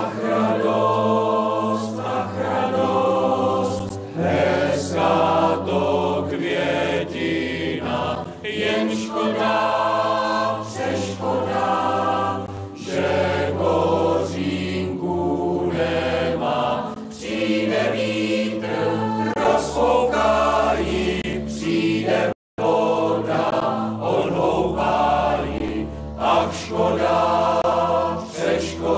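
A mixed ensemble of men's and women's voices singing a slow folk-style song in chorus, over sustained low accordion notes. The sound drops out for a split second about two-thirds of the way through.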